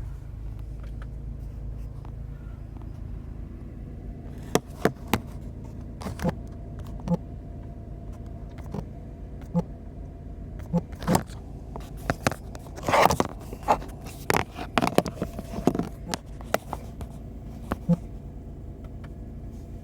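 Toyota car engine idling just after starting, a steady low hum heard from inside the cabin, with scattered sharp clicks and brief scrapes of handling in the cabin from about four seconds in.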